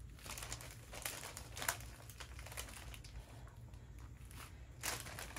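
Small plastic zip bags of diamond-painting drills crinkling and rustling as they are handled and stacked, in a run of short crackles with one sharper click about a second and a half in.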